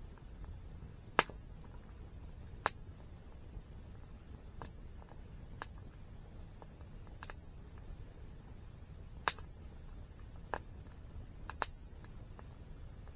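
Campfire burning, with sharp, irregular pops and crackles from the wood, the loudest about a second in and again at about nine seconds.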